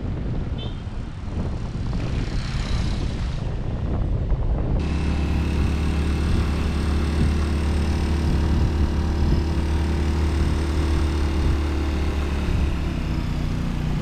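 Wind rushing over the microphone for about five seconds, then, after a sudden cut, a vehicle engine running at a steady speed with an even low hum.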